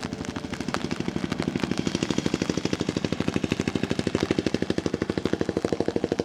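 A small engine running with a rapid, even putt-putt of about ten beats a second, growing louder over the first two seconds and then holding steady.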